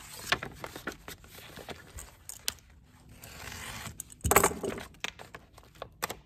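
Adhesive wrap film crinkling and crackling as it is pressed by hand onto an emblem and its paper backing is handled and peeled, with many small clicks and a louder crackle about four seconds in.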